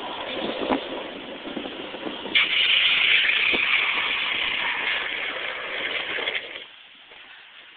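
Wind on a phone's microphone and longboard wheels rolling fast on asphalt, with a few clicks. About two seconds in, a louder hiss sets in for about four seconds, then the sound drops away sharply near the end as the board comes to a stop.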